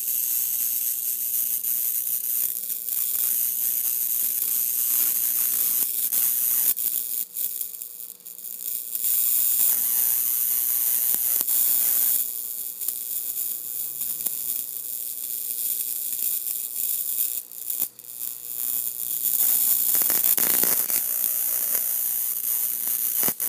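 Electric bug zapper at work: a high, hissing crackle that swells and fades several times as insects hit the charged grid, with a few sharp snaps, over a faint steady electrical hum.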